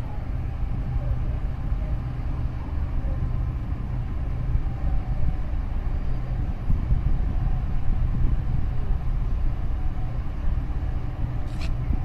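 Steady low rumble of a large container ship's engine as the ship passes close by. A single short high click comes near the end.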